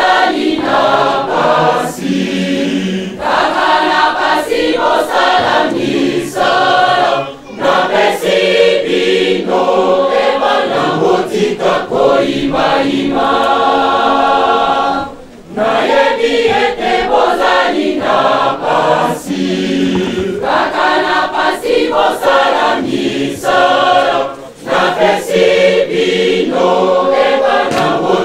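Large church choir singing a hymn in long phrases, with a brief breath pause about every eight seconds.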